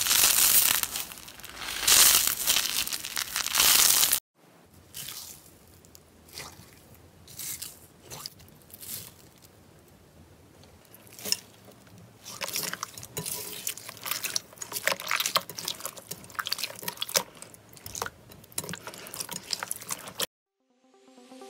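Slime being squeezed and pressed by hand, with a loud, dense crackling for about the first four seconds. After a sudden cut comes quieter handling with scattered clicks and crackles, which stops abruptly near the end.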